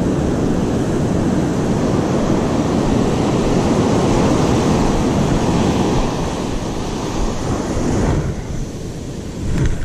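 Ocean surf breaking and washing up a sandy beach, a steady rushing wash of waves that eases somewhat about eight seconds in.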